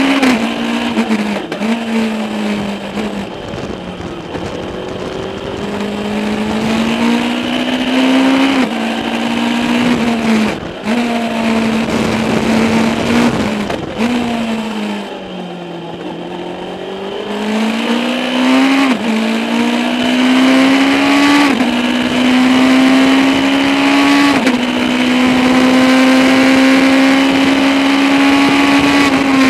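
Legends race car's Yamaha four-cylinder motorcycle engine at racing speed, heard from inside the cockpit. The revs climb and drop sharply with quick gear changes. About halfway through they fall away as the car slows for a corner, then climb back up through the gears and hold high near the end.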